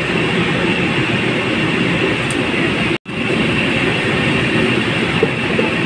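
Steady, loud mechanical rumble with a hiss above it, the kind of running noise a fan or machinery in a kitchen makes. It drops out for an instant about three seconds in.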